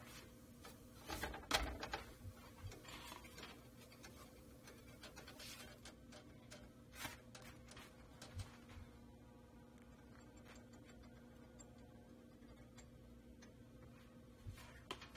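Hands handling a flour tortilla and lifting it off a cast-iron griddle: a short burst of light scraping and rustling about a second in, then a few faint clicks. After that, mostly a faint steady hum.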